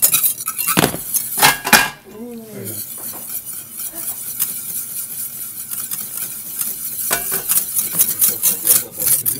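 Wire whisk beating sabayon (egg yolks and sugar) over the heat in a stainless-steel conical sauteuse, making a rapid metallic scraping and clicking against the pan. The whisking is loud for the first two seconds, softer for a while, then loud again from about seven seconds.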